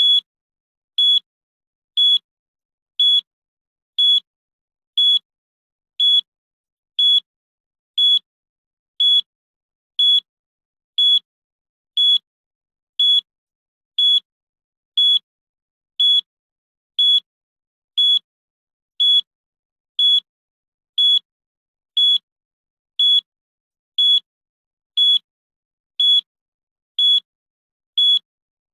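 Countdown timer beep sound effect: one short, high electronic beep every second, evenly spaced, marking each second of the count.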